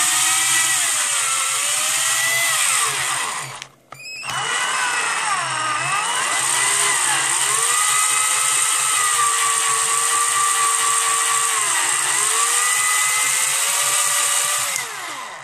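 Cordless drill-driver's small electric motor running at speed, its whine sagging in pitch and recovering as a hand pushes hard against it. It barely slows under the load. The motor stops for a moment about four seconds in, starts again and runs until near the end.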